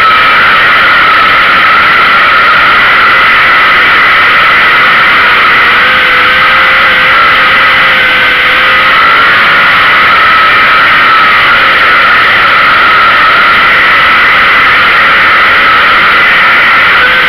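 Street stock race car engine running hard at high revs under racing load, very loud and steady, with its note dipping slightly and climbing back about halfway through as the car goes through a turn on the dirt oval.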